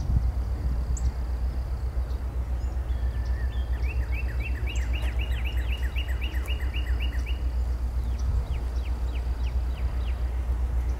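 Songbirds calling over a low steady rumble: short falling chirps repeat a few times a second, with a fast run of rising notes from about four to seven seconds in. The rumble is the distant engine of an approaching EMD GP9 diesel locomotive.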